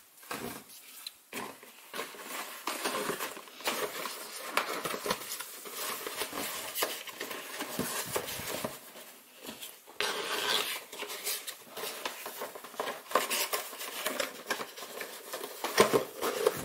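A Mahle LAK 230 cabin air filter being handled and slid into its cardboard box: irregular rustling and scraping of cardboard with light knocks, the loudest knocks near the end.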